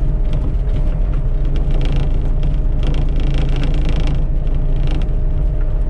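A vehicle engine running steadily while it drives slowly along a gravel road, with added rough crunching from the ground about two seconds in and again from about three to four seconds.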